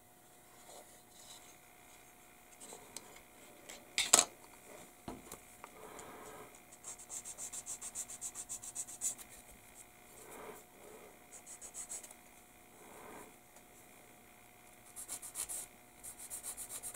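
Sanding stick rubbed quickly back and forth over a small plastic model part, in short bursts of rapid scraping strokes. A single sharp click about four seconds in is the loudest sound.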